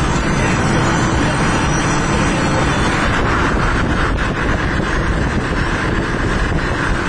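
Steady road and wind noise of a car travelling at highway speed, heard from inside the car.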